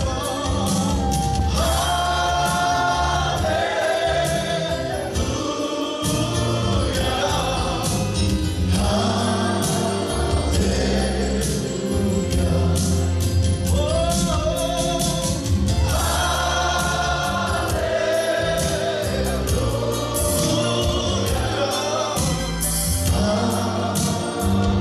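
Gospel worship song: a choir sings phrases, with pauses between them, over a band accompaniment with a steady beat.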